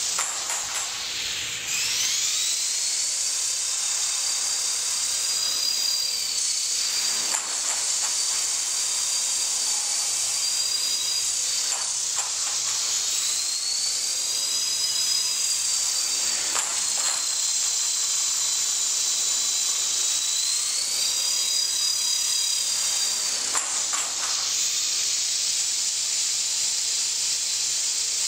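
Small radio-controlled helicopter's motor and rotor blades running with a high whine, its pitch gliding up and down as the throttle changes. About a second in the pitch sags low, then climbs back up, and a few light ticks come through now and then.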